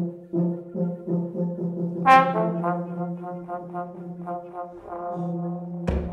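Small brass-led ensemble playing, with trombone and tuba repeating short low notes in a steady pulse. A loud, bright note comes in about two seconds in, then held notes, and a drum hit near the end.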